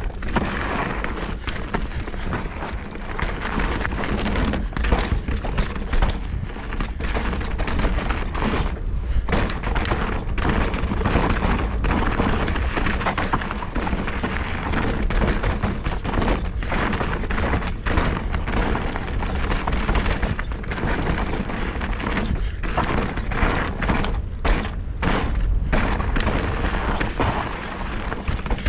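Mountain bike descending a dry, rough dirt trail at speed: steady tyre roar and wind buffeting on a helmet- or bike-mounted action camera, punctuated by frequent thuds and rattles as the bike hits roots, rocks and landings. About three-quarters of the way through, three bumps taken in a row give a run of quick landing thuds.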